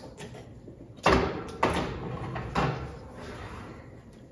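Metal baking pan set onto a wall oven's rack and the oven door pushed shut: three sharp knocks, the loudest about a second in, the others about half a second and a second and a half later.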